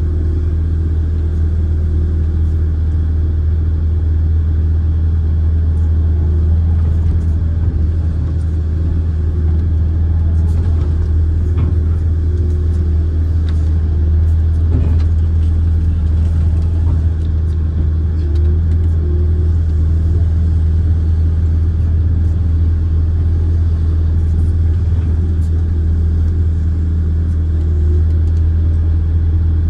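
Kobelco amphibious excavator's diesel engine running steadily as the arm digs mud, a deep even drone heard close up from the operator's position.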